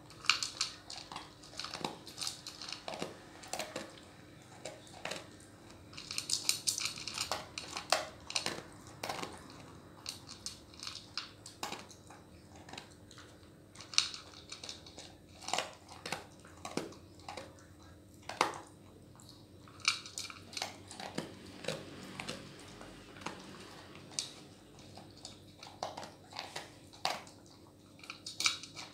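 A dog eating dry kibble from a bowl: irregular crunching and chewing, with kibble and teeth clicking and rattling against the bowl.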